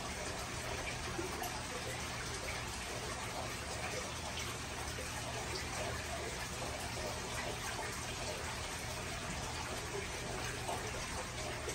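Steady running-water noise of an aquarium's filtration, with a low steady hum underneath.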